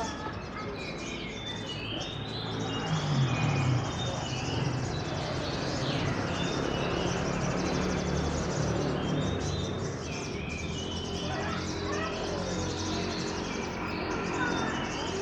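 Caged songbirds singing in rapid chirps and trills, with background murmur of a crowd.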